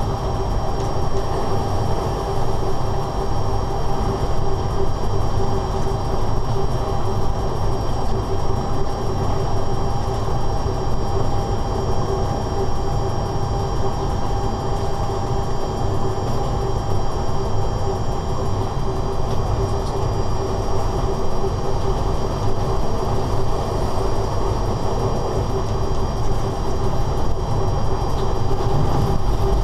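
Inside the cab of a BDZ class 45 electric locomotive running at line speed: a steady, even rumble of the running gear on the track, with a constant hum and a faint high whine over it.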